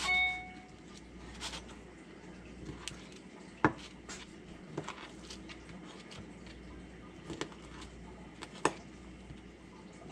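A kitchen knife cutting raw burbot fillet into chunks on a thin cutting board over a tile counter, with scattered sharp taps as the blade hits the board, two of them louder. A short ringing clink at the very start is the loudest sound.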